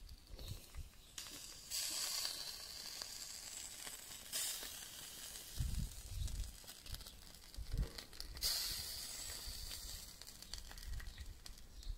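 Whole fish and corn cobs sizzling on a stainless-steel grill grate over charcoal: a hiss that swells and fades, loudest about two seconds in, again near the middle and toward the end. A few low thumps come in the second half.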